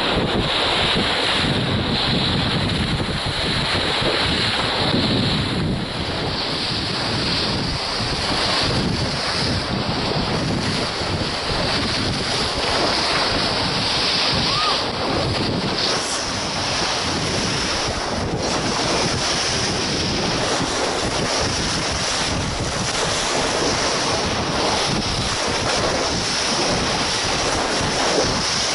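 Wind blowing hard on the microphone over steady rushing water, with no break.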